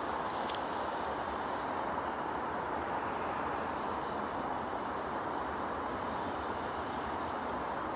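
Steam locomotive moving slowly toward the listener, giving a steady hiss with no distinct exhaust beats.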